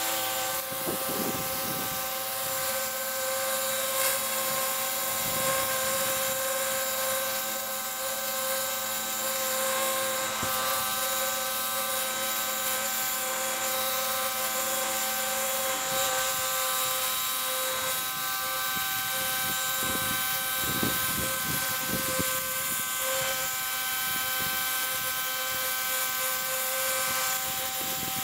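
Ryobi electric pressure washer running steadily: a constant whine at several pitches over the hiss of the water jet.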